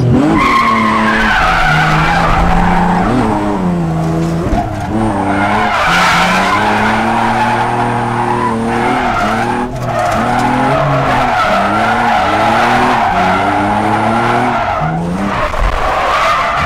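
Drift car heard from inside the cabin, sliding: the engine revs up and drops back again and again as the throttle is worked, over a continuous squeal of the rear tyres.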